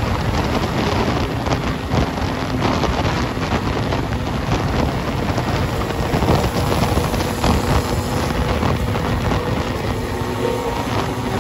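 Wind rushing over the microphone on a vehicle travelling at highway speed, over steady engine and road noise with a faint engine hum.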